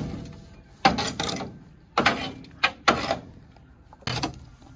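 A shovel scraping and knocking in a three-wheeled dump truck's bed as stuck lumps of wet soil are dug loose, in several separate strokes about a second apart.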